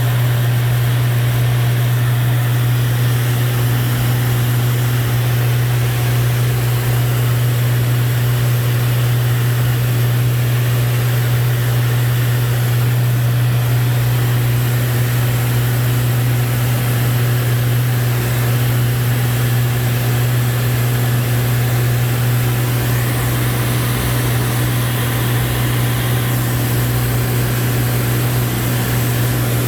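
Steady cabin noise of a Lancair IV-P in cruise: an even low engine and propeller drone with rushing airflow noise over it.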